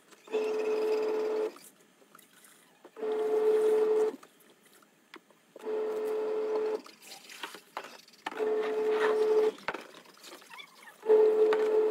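Twin-tub washing machine on its wash cycle: the wash motor runs with a steady hum for about a second, stops for about a second and a half, then runs again, five times in all, as the pulsator turns the load one way and then the other.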